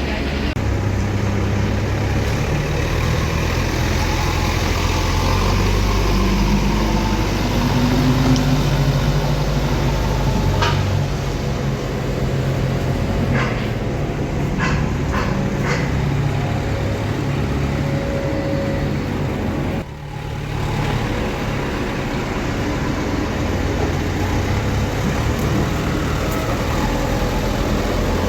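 Heavy diesel engine running steadily at a low, even pitch, with a few short sharp knocks in the middle and a brief drop about two-thirds through.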